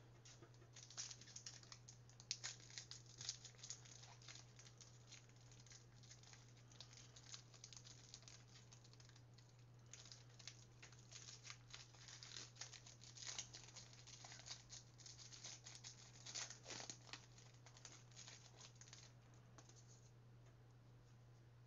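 Faint crinkling and tearing of a trading-card pack wrapper being ripped open and the cards inside handled, in scattered crackles that stop shortly before the end, over a steady low hum.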